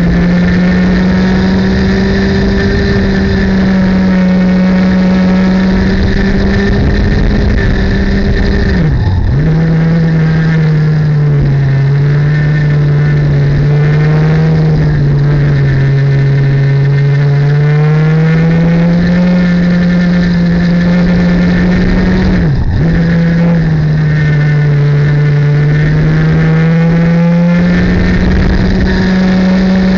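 Two-stroke racing kart engines heard onboard at high revs, with wind rushing over the microphone. The revs drop sharply twice, about nine seconds in and again about twenty-two seconds in, as the kart brakes for corners, then climb steadily back. A second kart's engine runs close alongside in pitch.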